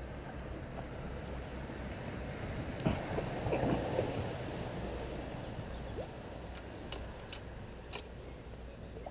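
A carp swirling and splashing at the lake surface, a short burst of splashing about three seconds in over steady outdoor background noise, with a few faint clicks afterwards.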